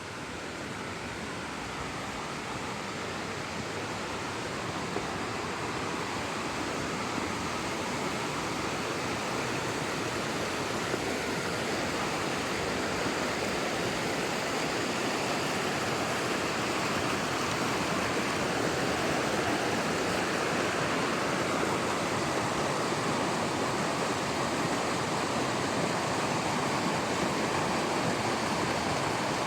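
Waterfall: a steady rush of falling water, growing gradually louder through the first twenty seconds or so, then holding.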